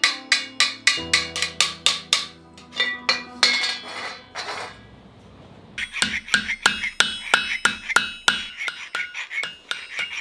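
Hammer striking copper about three to four times a second, each blow ringing, stopping at about four and a half seconds. After a short lull, rapid strokes and taps on copper start up with the metal ringing: a flat file worked over a small copper ring, with hammer taps.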